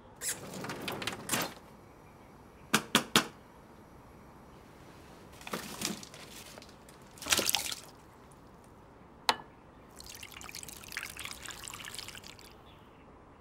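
Handling noises from opening a freezer drawer: a rustle, three quick sharp clicks, then more knocks and rattles. Near the end, tap water runs for about two and a half seconds onto frozen tomatoes in a glass bowl, thawing them so the skins slip off.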